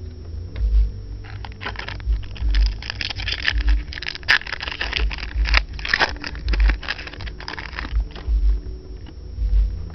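Foil trading-card pack wrapper being crinkled and torn open, a dense crackling for several seconds in the middle. A low thud recurs about once a second underneath.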